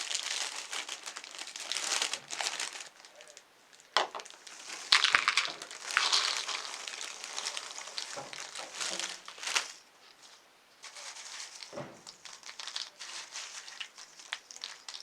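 Crinkling and crunching in irregular bursts, with a few sharp clicks: Goldfish crackers and their packaging being handled and crushed.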